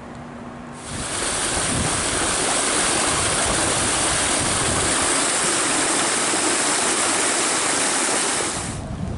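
Floodwater rushing and splashing as a steady loud rush. It cuts in about a second in and cuts off just before the end.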